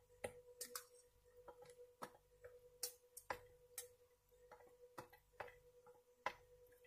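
Faint, irregular clicks and scrapes of a spoon against a stainless steel bowl as rice and crumbled meat substitute are stirred, about two a second.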